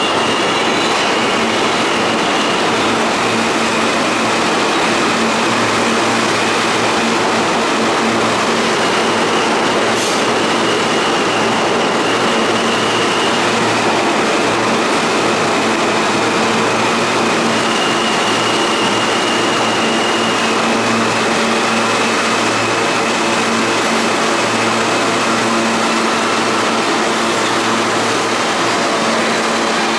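R160 subway train pulling out of the station and running off into the tunnel, a steady rumble with a thin high-pitched whine that comes and goes.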